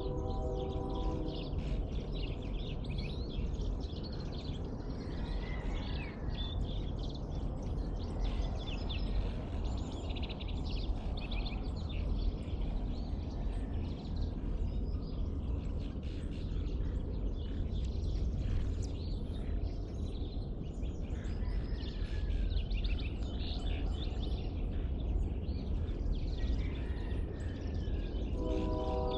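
Dawn chorus of many birds chirping and calling over a steady low rumble. A steady humming tone stops about a second in and returns near the end.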